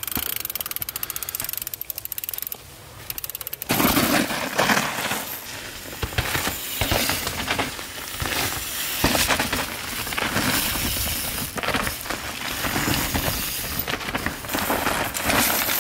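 Downhill mountain bike's rear freehub ticking rapidly as the wheel rolls, stopping about four seconds in. Then the tyres tear through wet mud and roots while the chain and frame rattle and clatter over the bumps of the descent.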